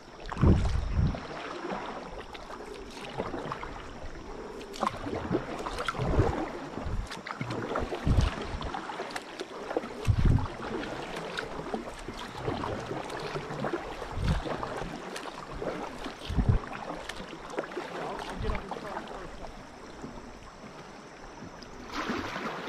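Kayak paddle strokes dipping and splashing in slow river water, with occasional dull thumps every few seconds.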